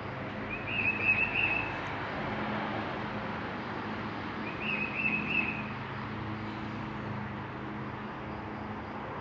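Motor oil glugging out of an upturned quart bottle into a funnel on a diesel engine, while a songbird twice sings a short trilled phrase, about half a second in and again near the middle.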